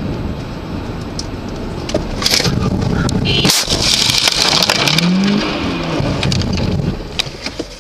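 Car crashing, heard from inside the car: steady road noise, then from about two seconds in a loud, dense clatter of impacts, rattling and scraping, with one especially hard hit about halfway through, dying down near the end.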